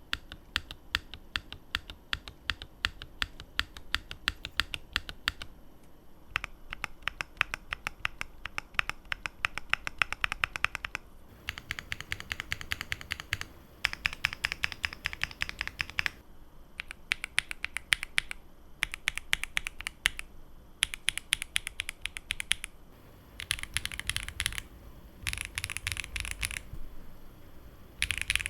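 Fast typing on a custom Tofu 65 2.0 mechanical keyboard with lubed Gateron Baby Kangaroo tactile switches, a PC plate and GMK Striker 2 keycaps. The keystrokes come in quick runs broken by brief pauses, and the runs in the second half are sharper and brighter.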